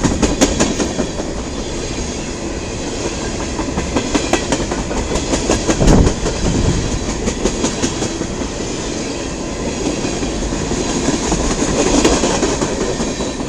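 Freight cars of a passing CN mixed freight train rolling by, steel wheels clicking and clattering over rail joints. The noise drops off near the end as the last car goes by.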